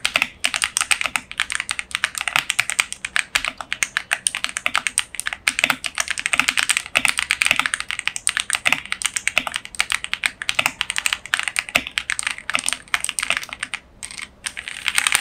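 Typing sound test on a MageGee SKY81 wireless mechanical keyboard: a fast, continuous run of key clacks, thinning briefly about a second before the end and then picking up again.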